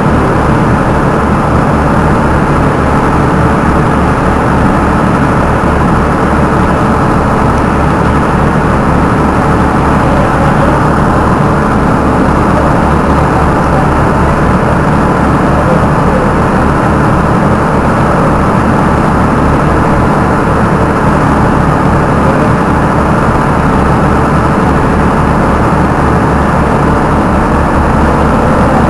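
Engine of the Alizé passenger shuttle boat idling while moored: a loud, steady low rumble that does not change.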